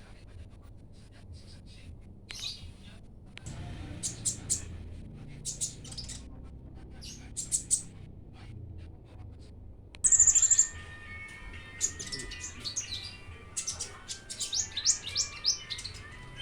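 Small songbird chirping in rapid high-pitched bursts and short trills, sparse at first. A loud trill comes about ten seconds in, followed by denser chirping.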